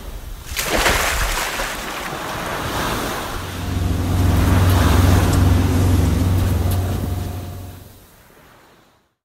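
Surf sound effect, waves washing in. About three and a half seconds in, a low steady droning tone joins it, then both fade out near the end.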